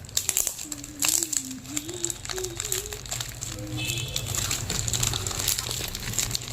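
Plastic courier packaging crinkling and rustling in irregular crackles as it is handled and opened.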